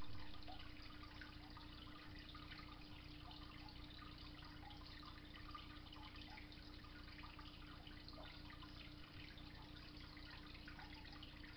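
Faint water trickling and splashing into an aquarium as cooler water is poured in through a hose, with a steady low hum underneath.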